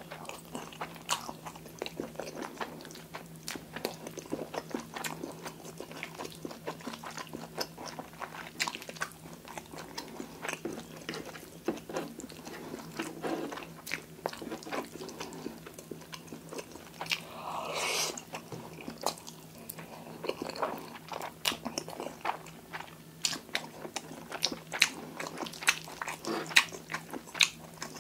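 Close-miked chewing of creamy fettuccine pasta, with many small wet mouth clicks, plus one longer, louder eating noise about two thirds of the way through.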